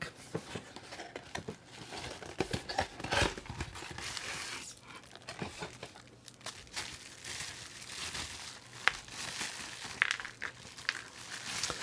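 Plastic packaging crinkling and rustling as it is handled and opened, with scattered small clicks and ticks of plastic parts.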